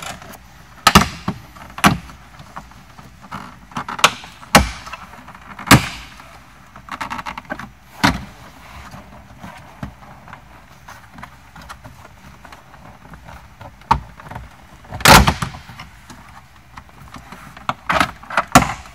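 Plastic trim clips snapping loose, with knocks, as the upper dash trim panel of a 2014 Tesla Model S is pulled off by hand: about ten sharp snaps spread irregularly, the loudest about fifteen seconds in, with handling rustle between them.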